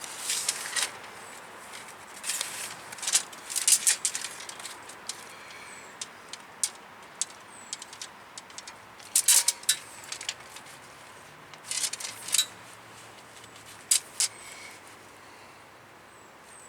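Steel brake line being handled and straightened by hand: irregular light metallic clicks, taps and brief scraping, with small clusters about 3 to 4 seconds in, around 9 seconds in and around 12 seconds in.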